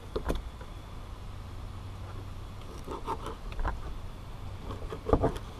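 A fillet knife scraping and ticking as it slices the rib bones out of a raw fish fillet on a plastic cleaning table. The strokes are short and scattered, the loudest coming just before the end, over a low steady background hum.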